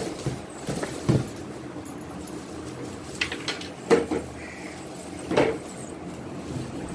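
Clear plastic wrapping rustling and crinkling around a plastic rocking-horse toy as it is handled, with a few dull knocks as the toy bumps against its cardboard box and is set down on a tiled floor; the loudest knock comes about four seconds in.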